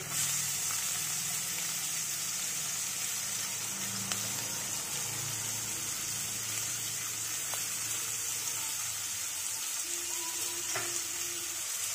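Freshly sliced onions sizzling in hot mustard oil in a kadai: a steady frying hiss.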